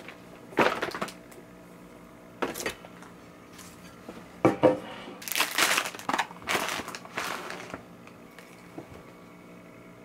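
Paper shopping bag and plastic wrapping rustling and crinkling in several short bursts as purchases are taken out and set on a table.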